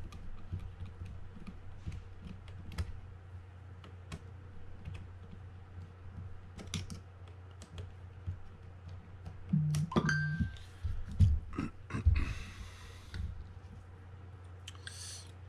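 Small scattered clicks and taps of a mini screwdriver working the screws out of a Penn Clash 8000 spinning reel's rotor and of small metal reel parts being handled. There is a louder clink with a short ring about ten seconds in, all over a steady low hum.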